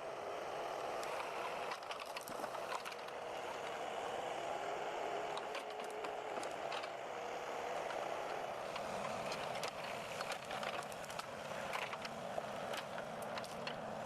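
Forestry machine running steadily, with scattered short crackles and snaps over the engine noise.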